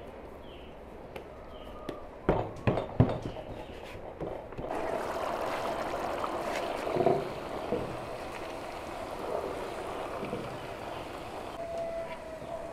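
Liquid boiling hard in a large cooking cauldron, a steady bubbling hiss that starts suddenly about a third of the way in. Before it come a few sharp knocks.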